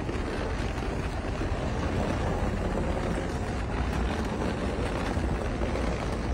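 Steady outdoor noise with a deep, unbroken rumble: wind on the microphone mixed with street and traffic sound.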